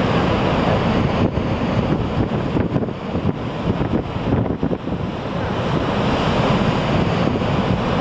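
Niagara's Horseshoe Falls plunging into the gorge: a steady, dense rush of falling water, with wind buffeting the microphone.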